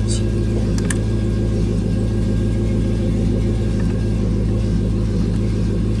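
Chevrolet Caprice engine idling steadily, with two short clicks in the first second.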